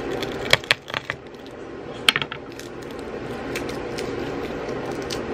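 Garlic cloves being crushed under the flat of a chef's knife and peeled by hand on a bamboo cutting board: a few sharp clicks and taps, the loudest about half a second in and about two seconds in, over steady background noise.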